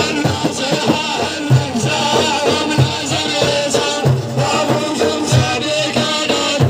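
Music from an Arabic religious praise song (madih): a regular drum beat under a wavering, ornamented melody line.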